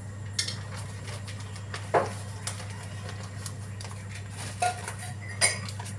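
Metal pots, plates and utensils clinking and clattering in a few separate knocks, the loudest about two seconds in with a short ring, over a steady low hum.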